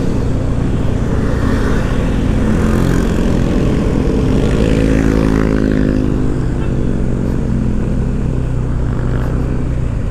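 Motorcycle engine running steadily while riding, its note swelling and falling back once around the middle.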